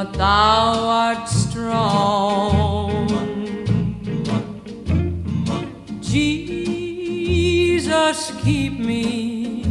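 Music: a song with a sung vocal, its held notes wavering, over a bass line.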